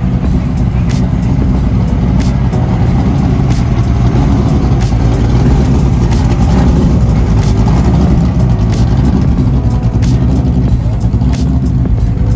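A car engine and exhaust running loud and fairly steady, with a rough, crackly texture throughout.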